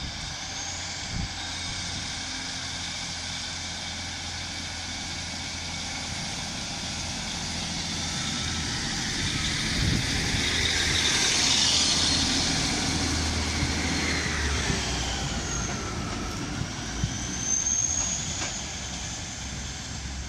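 Diesel passenger trains running at the station: a steady engine drone with a whine over it, growing louder to a peak about ten to twelve seconds in as a train passes close by, its pitch sliding down as it goes.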